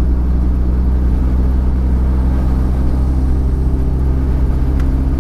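Steady low drone inside the cabin of a 1997 Honda Civic hatchback at highway cruising speed: the four-cylinder engine's hum under road and tyre noise.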